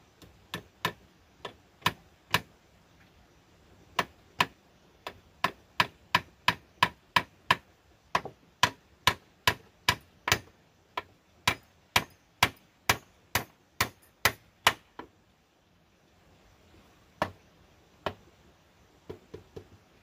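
Hammer striking a wooden frame: sharp knocks in short runs, about two to three a second, with pauses between runs.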